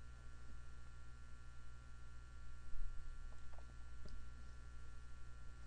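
Steady low electrical hum over faint room tone, with a few faint clicks around three to four seconds in.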